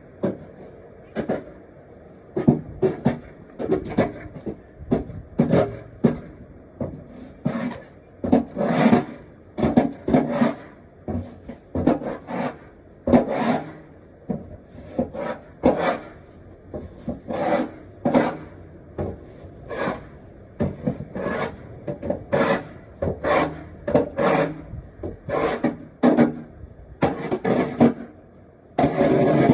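Snow shovel scraping and pushing snow in quick, irregular strokes, one or two a second.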